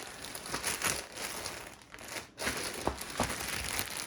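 Crinkling and rustling as the pillow is handled, with a couple of sharper clicks about three seconds in.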